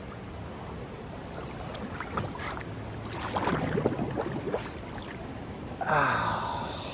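River water running in a rocky swimming pool, with swimmers' voices in the background and a louder short vocal exclamation about six seconds in.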